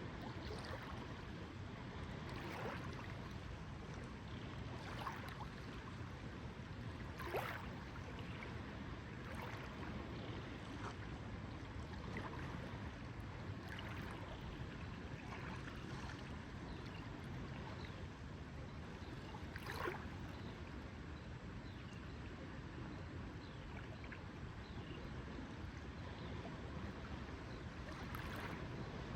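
Lake water lapping: small splashes every couple of seconds over a steady low wash of water, the two strongest about seven and twenty seconds in.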